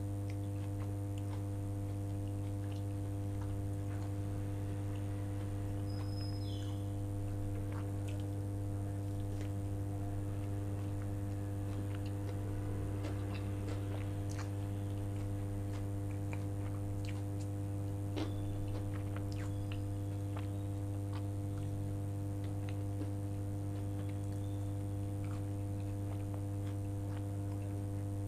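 Close-miked chewing of soft food, with scattered small mouth clicks, over a steady low electrical hum with overtones that is the loudest thing throughout.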